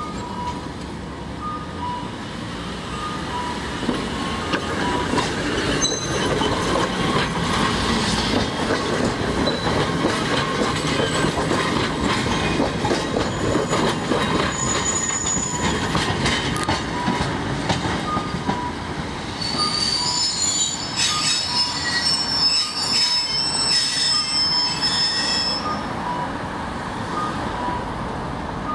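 Fukui Railway 610-series tram pulling away from the stop and passing close by, its motors and wheels rumbling over the street track. From about twenty seconds in, the wheels squeal high and shrill for several seconds as the car rolls away through the track work.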